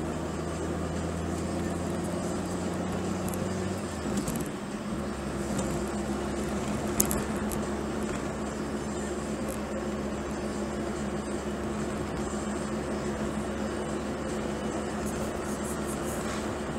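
Car engine and road noise heard from inside the cabin while driving, a steady low drone. The engine note changes and briefly dips about four seconds in. A single short click comes about seven seconds in.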